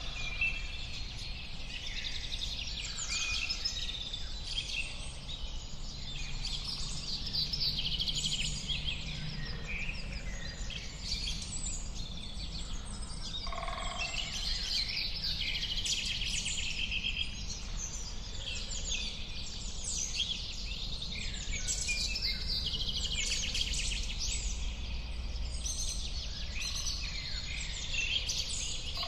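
Many birds singing and chirping at once, a continuous chorus of overlapping trills and calls, over a low steady background rumble.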